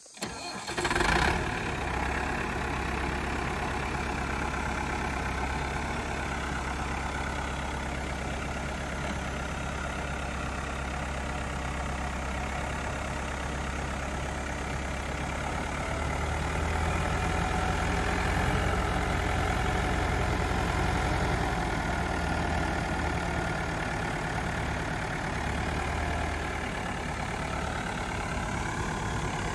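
Massey Ferguson 4253 tractor's diesel engine starting up, with a short loud burst as it catches about a second in, then idling steadily.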